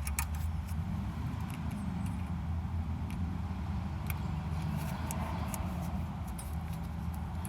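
Steady low background rumble, with a few faint light metallic clicks as the brake pads' retaining clips are handled and fitted into the holes in the pads.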